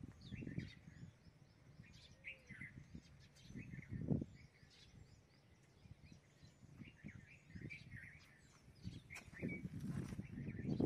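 Many small birds chirping and trilling, with irregular low rumbles and thumps, strongest about four seconds in and again near the end.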